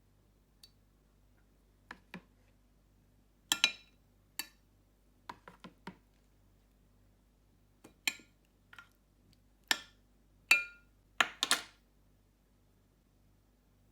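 A serving utensil clinking and knocking against a dish while cooked fish fillets are lifted out and moved into another container: about a dozen irregular, sharp clinks, some ringing briefly, the loudest coming together near the end.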